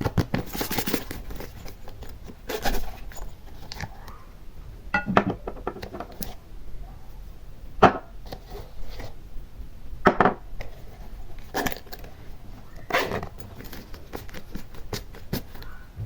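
Slime being worked by hand: irregular sticky snaps, pops and crackles as it is pulled and pressed.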